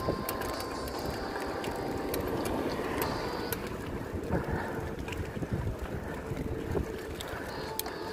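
Bicycle freewheel ratchet clicking rapidly as the bike coasts, over a steady rumble of riding.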